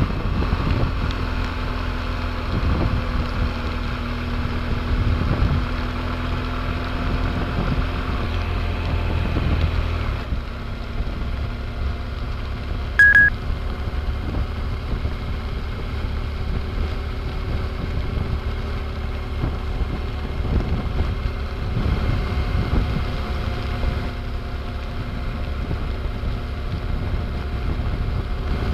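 Motorcycle engine running steadily at road speed, with wind and rain noise on the microphone. A single short, loud electronic beep sounds about 13 seconds in.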